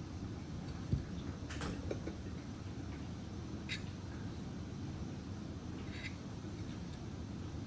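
Faint handling of a Zippo lighter's insert: a few light clicks and scrapes of small metal parts being worked on by hand, spaced a second or two apart, over a steady low hum.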